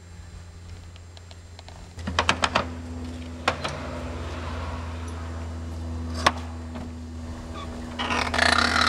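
A bunch of keys clicking and rattling at the lock of a wooden plank door, with a sharp knock about six seconds in and a burst of jangling near the end, over a steady low hum.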